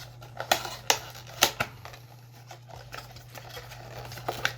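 Small cardboard retail box being handled and opened: several sharp separate clicks and taps with light rustling of the packaging.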